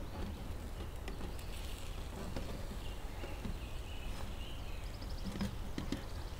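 A metal utensil taps and scrapes against a nonstick frying pan in scattered clicks as an omelette is worked loose and folded. Under it runs a steady low rumble, with a few faint high chirps.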